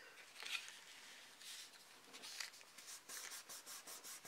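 Hands rubbing over a sheet of watercolour paper, pressing a glued paper bag flat: faint papery swishes that settle, about three seconds in, into a steady back-and-forth of about four strokes a second.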